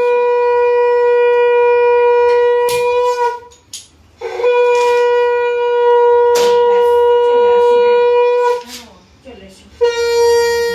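Conch shell (shankha) blown in three long, steady blasts: the first two about four seconds each, the last one shorter, near the end. Two sharp clicks fall between the blasts.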